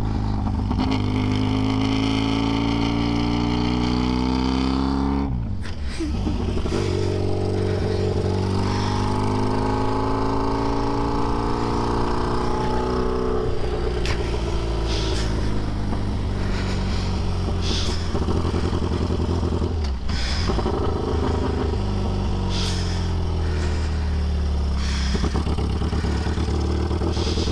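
Classic racing sidecar outfit's engine running hard, its pitch climbing under acceleration, breaking off sharply about five seconds in, then rising again and falling away as it eases off, before picking up once more.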